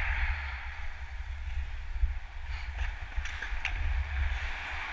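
Hockey skates gliding on rink ice with a steady hiss, under a low wind rumble on the body-worn camera's microphone. A few faint sharp clicks come through about halfway in.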